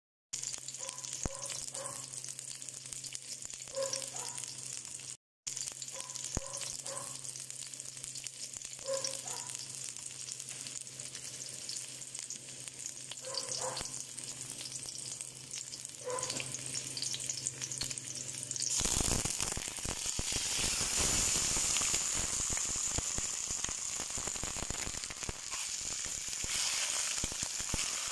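Garlic and onions sizzling in hot oil in a pan, a steady hiss with fine crackles. About two-thirds of the way through, the sizzle suddenly gets louder and fuller and stays so, as raw chicken pieces go into the pan to sear.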